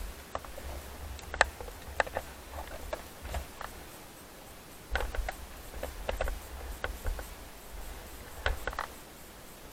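Irregular clicks and light rattles from a small wheeled vehicle moving along a road, over a low rumble that eases off briefly in the middle.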